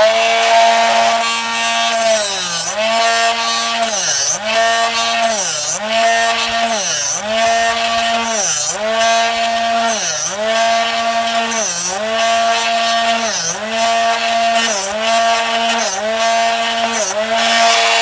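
Drill Doctor 500X drill bit sharpener switched on and grinding a drill bit as it is turned in the sharpening port. The motor hums steadily, and about every second and a half its pitch sags as a burst of grinding hiss comes with the bit bearing on the wheel. The less it grinds, the closer the bit is to sharp.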